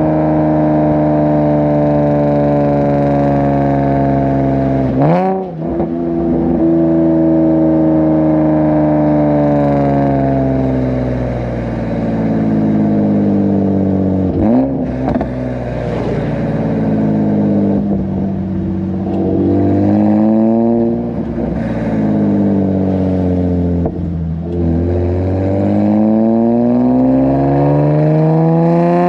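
Nissan 370Z's 3.7-litre V6, breathing through PPE headers, pulling hard with the pitch climbing and two quick upshifts, about five seconds in and again about fourteen seconds in. After that the engine note falls steadily as the car slows, then climbs again near the end as it accelerates.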